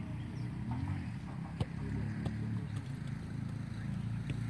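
A motor vehicle's engine running steadily, its pitch drifting slowly up and down, with a couple of faint sharp clicks.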